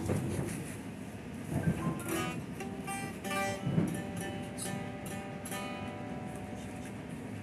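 Hollow-body electric guitar: single strings plucked and a few notes let ring while the player tunes it at the headstock.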